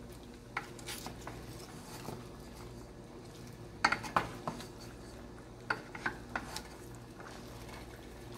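Wooden spatula stirring chicken wings in a pot of boiling adobo liquid (soy sauce and vinegar), with short knocks against the metal pot, the loudest cluster about four seconds in. A steady low hum runs underneath.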